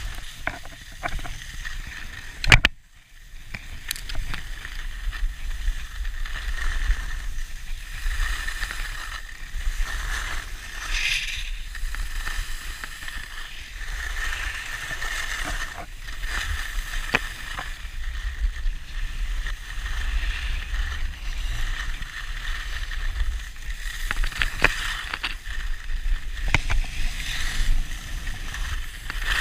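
Wind buffeting a GoPro Hero4's microphone during a downhill ski run, over the steady scrape of edges sliding on packed snow. One sharp thump about two and a half seconds in, followed by a moment of quiet.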